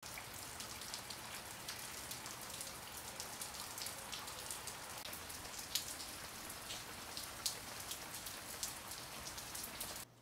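Steady rain falling, with individual drops hitting close by as sharp ticks. It cuts off suddenly near the end.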